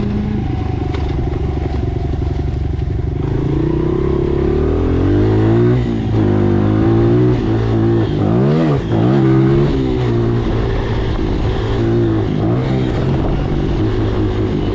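Dirt bike engine running under way, its revs climbing about four seconds in, then swinging up and down several times as the throttle is worked, before settling to a steadier note near the end.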